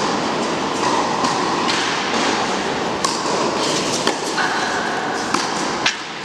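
Tennis ball struck by rackets in a rally, several sharp pops over a steady background noise, with a short high squeak between them.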